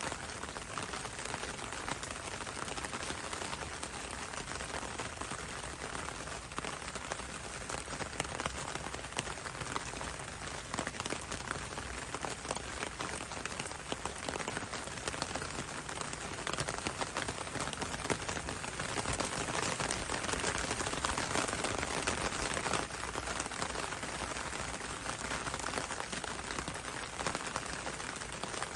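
Steady rain falling on leaves: a dense patter of countless drops, swelling a little about two-thirds of the way through.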